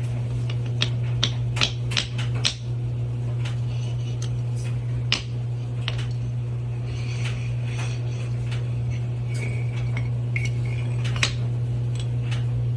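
Scattered sharp metallic clicks and clinks over a steady low hum.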